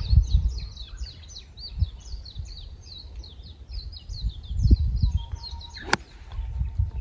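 Songbirds chirping steadily in rapid, repeated high notes, with wind buffeting the microphone in low rumbles. A single sharp click sounds near the end.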